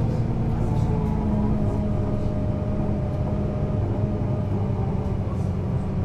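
Solaris Urbino 18 Hybrid articulated bus running, its hybrid drivetrain giving a steady hum with a constant low tone and a fainter higher whine.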